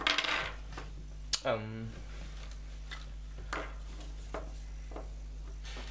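Hands handling small hard objects on a wooden desk: a brief rustle of a plastic bag at the start, then a few scattered light clicks and knocks.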